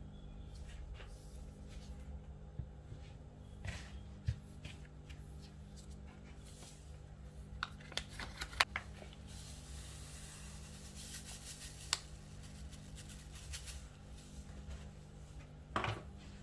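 A spoon and a hand working dry flour mix in a plastic bowl: light taps and scrapes against the bowl, a quick cluster of taps a little past halfway, then a soft rubbing rustle of the powder for a few seconds, over a steady low hum.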